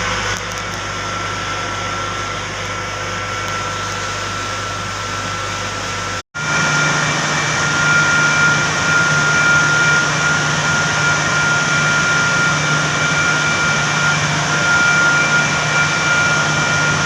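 FCU electric motor running with a steady mechanical hum and whine, an abnormal sound at the drive-end (coupling side) bearing that is taken for a bearing problem. The sound cuts off sharply about six seconds in and comes back louder, with a steady high whine over the hum.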